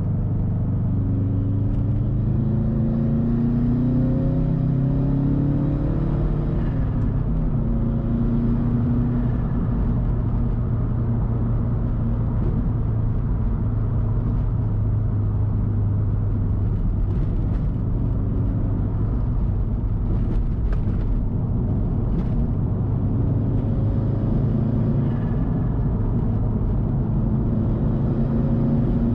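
2013 Subaru WRX STI's turbocharged flat-four engine running through a Tomei Expreme Ti titanium exhaust while driving. Over the first few seconds the pitch rises as the car accelerates, then the engine settles into a steady, low drone as it cruises.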